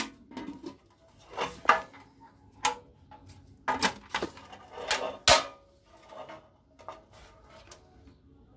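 Marvel sheet-steel tool box being opened: its metal clasp latches are flipped and the hinged steel lid is lifted, giving about eight sharp metallic clicks and clanks over the first five seconds, the loudest just after five seconds.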